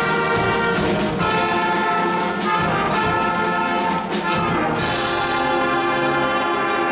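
School concert band playing sustained brass-heavy chords, with a sudden bright crash about two-thirds of the way through that rings on under the band.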